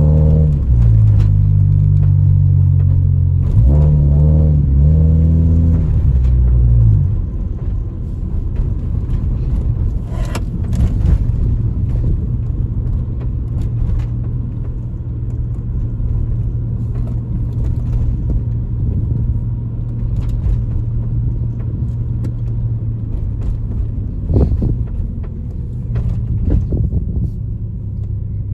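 Honda Civic EJ9 automatic's four-cylinder engine heard from inside the car while driving, misfiring on all four cylinders. It pulls with rising and falling pitch for the first several seconds, then drops to a lower steady hum, with a few brief knocks.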